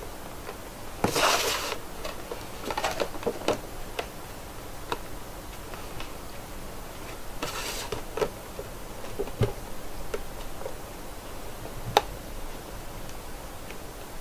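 Handling noise from posing a small plastic action figure: scattered light clicks and taps as its joints are moved and it is set down on its cardboard box, with two brief rustles, one about a second in and one about halfway.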